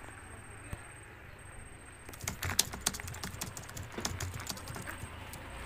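A rapid, irregular run of sharp clicks, like typing on a keyboard, starts about two seconds in over faint steady hiss.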